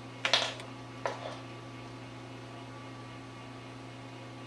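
Two brief sharp noises from a beagle puppy and a golden retriever at play, about a quarter second and about a second in, over a steady low electrical hum.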